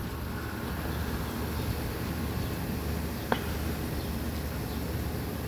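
52-inch ceiling fan running on low, a steady low hum from its motor and blades with a single click about three seconds in.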